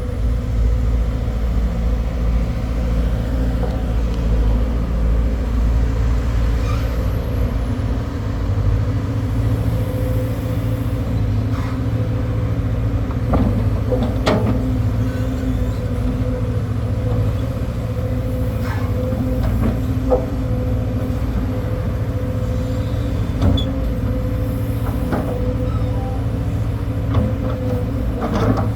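A four-cylinder diesel excavator engine running steadily, with a few short clicks and knocks about halfway through and later on.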